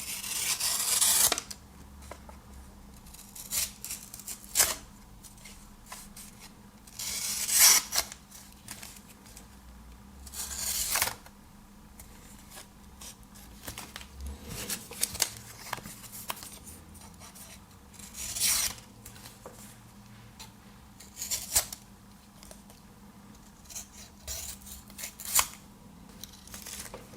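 Victorinox Tinker pocket-knife blade slicing through a piece of material in about nine separate cutting strokes, unevenly spaced, as its sharpness is tested.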